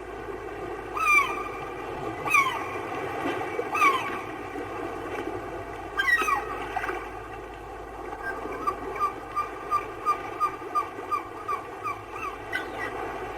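Gull calling: four drawn-out falling cries over the first six seconds, then a quick run of short yelping notes, about three a second, from about eight and a half seconds in. A steady rushing noise sits underneath.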